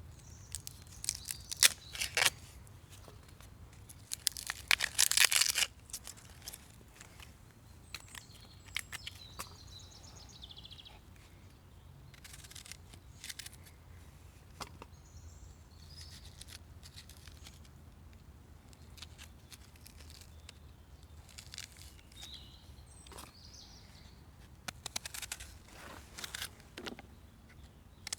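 Bursts of sharp crackling and rustling, with a bird chirping now and then.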